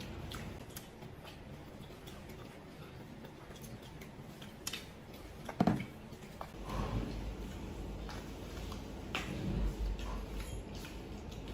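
Eating and food-handling noises at a table: chewing, with scattered clicks and taps, the loudest about halfway through, and a low rumble starting a little past the middle.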